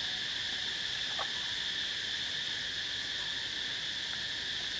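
Steady high-pitched chorus of insects droning without a break.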